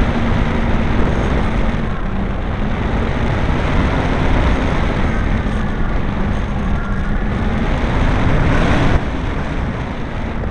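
Radio-controlled Piper model airplane in flight, heard from its own onboard camera: a steady motor-and-propeller drone under heavy wind rush. The drone shifts slightly in pitch, swells just before the last second or two, then drops a little in level.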